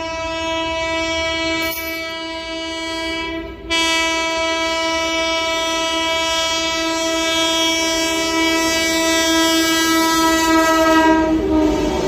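A long, loud blast of an Indian express train's horn: one steady note, broken for only an instant about four seconds in, over the rumble and wheel noise of the train running through at speed. The horn stops near the end and the rush of the passing train grows louder.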